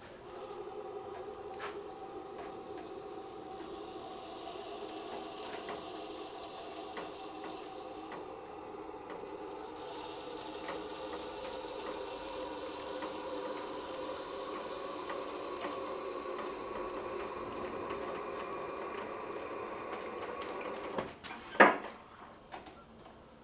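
Hydraulic vehicle lift running with a steady hum for about twenty seconds, cutting off suddenly, followed by one sharp metallic clack.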